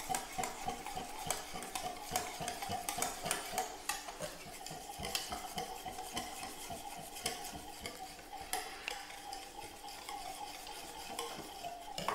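Wire whisk beating a thin mango-custard batter in a glass bowl, its wires tapping the glass in many quick, uneven clicks.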